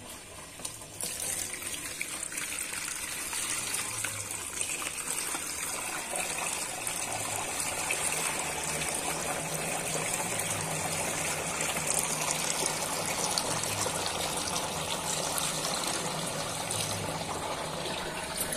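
Water pouring in a steady stream from a bucket into the top fill tray of a Hindware 38-litre air cooler, splashing down into its tank as the tank is filled. The pour starts about a second in.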